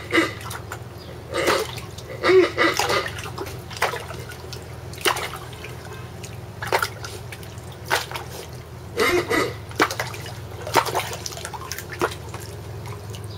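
A Jack Russell terrier puppy wading and splashing in the shallow water of a plastic paddling pool, biting at the water: short irregular splashes and sloshes, roughly one every second or so.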